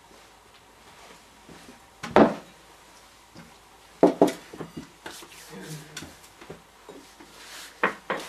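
Sharp knocks and clatters of a wooden chair and a plate of food as a person sits down at a table and handles the food. The loudest knock comes about two seconds in, a pair follows about four seconds in, and another comes near the end.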